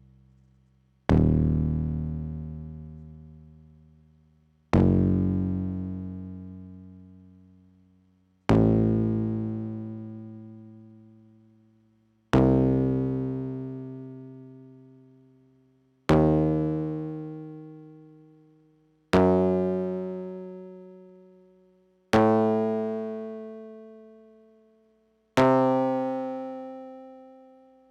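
Korg EX-800 synthesizer bass patch playing eight separate notes, each struck sharply and fading out over about three seconds, spaced three to four seconds apart. The notes step generally upward in pitch.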